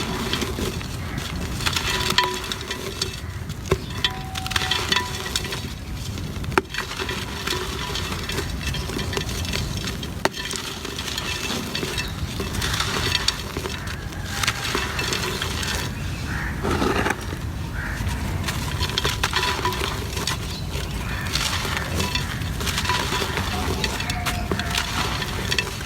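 Gritty cement crumbling and breaking apart, a dense, continuous run of crackles and small snaps.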